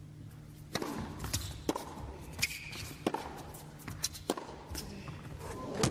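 Tennis ball struck back and forth in a rally on an indoor hard court: sharp pops of racquet hits and ball bounces, a half second to a second apart, with a few short squeaks, in a hushed arena.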